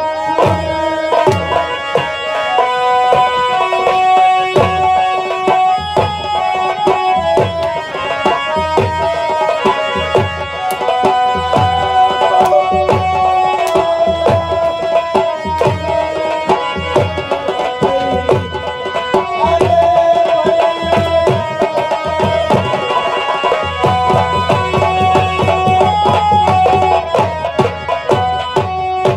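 Instrumental folk music: a dholak hand drum playing a quick rhythm, its bass strokes bending down in pitch, under a melody of held notes. The drumming gets denser near the end.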